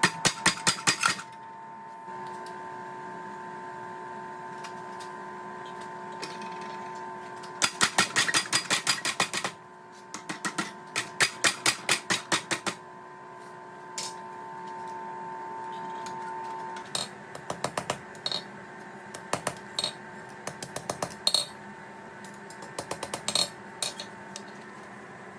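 Quick runs of light hammer blows on metal at the anvil, about six to eight strikes a second, in three bursts, then scattered single taps. A steady ringing tone runs underneath and fades out about two-thirds of the way through.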